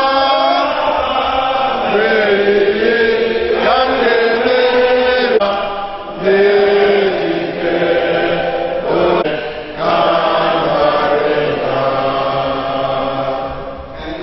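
A group of voices singing together in a slow chant, holding long notes, with two short breaks for breath partway through.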